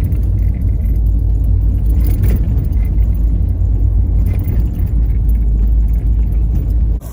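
Car driving, a steady deep rumble of engine and road noise that drops off suddenly near the end.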